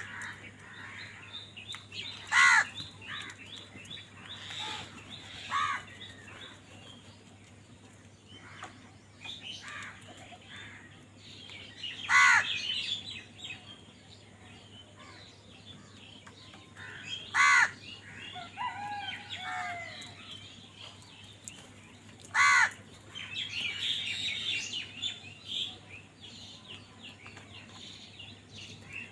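Crows cawing: about five loud single caws spaced several seconds apart, with softer chirping bird calls between them.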